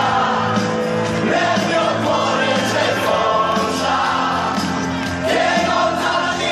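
Loud music with a large crowd of football fans singing along and shouting.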